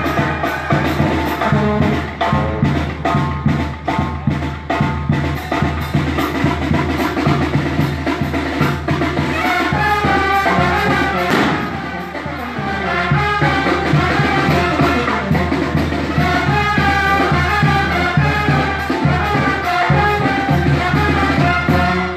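Mexican brass band with sousaphone playing, with a brief dip in loudness about halfway through. The music stops right at the end.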